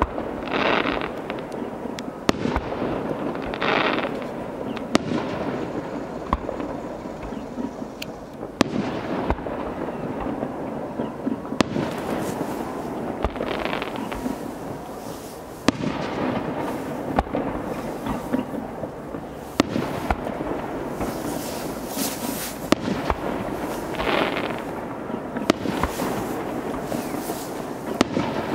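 Fireworks display: aerial shells bursting with sharp bangs every second or two, with several brief hisses between them.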